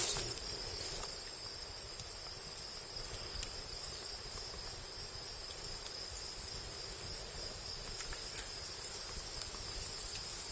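Steady, high-pitched chorus of field insects.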